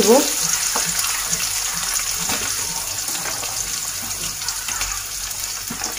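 Chopped onions sizzling steadily in hot oil in a steel karai, with more onion pieces going into the pan. A few faint clicks can be heard over the sizzle.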